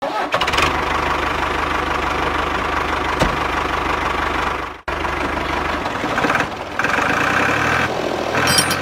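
Tractor engine running at a steady low chug, cutting out abruptly a little under five seconds in and then running on.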